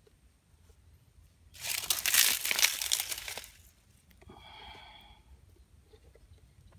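A loud crinkling, crackling rustle lasting about two seconds, followed by a faint short sound about a second later.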